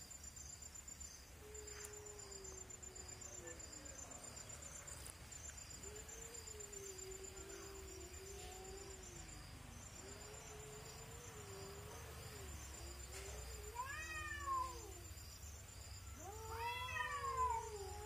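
Two cats yowling at each other in a territorial standoff: long, low, drawn-out wails that waver up and down in pitch, breaking twice near the end into louder, higher yowls that rise and fall.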